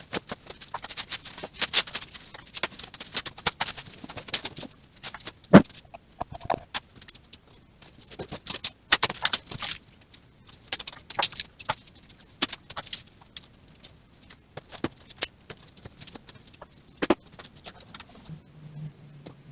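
Irregular rustling and crinkling with many small clicks, broken by two sharper knocks, one about a third of the way in and one near the end.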